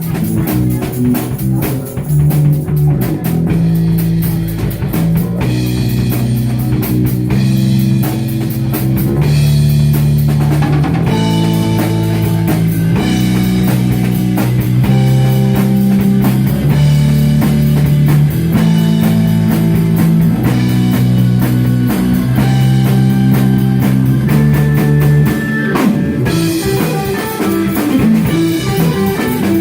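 Rock band playing an instrumental: drum kit and guitar over held chords that change every second or two.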